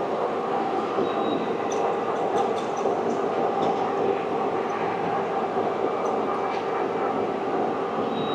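Steady machinery hum and whir of an Okuma CNC lathe and the machine shop around it, with a few faint ticks about two seconds in.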